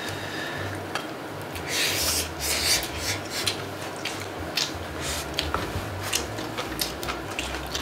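Close-up mukbang eating sounds: chewing of bean-sprout bulgogi and perilla-leaf wraps, with a few louder crunchy swells about two seconds in. Chopsticks and spoons click against bowls and the pan throughout.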